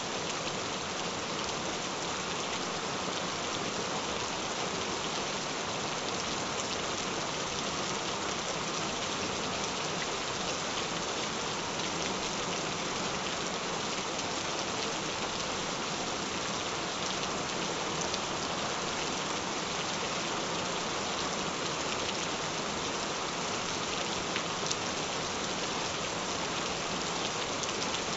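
Gentle rain falling steadily: an even hiss of rain with scattered sharper drop ticks.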